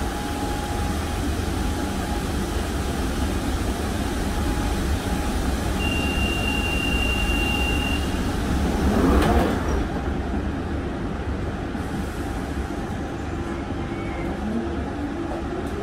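Central Line 1992-stock tube train standing at a platform: a door warning tone sounds for about two seconds, the doors close with a burst of noise about nine seconds in, and near the end the traction motors begin a rising whine as the train pulls away.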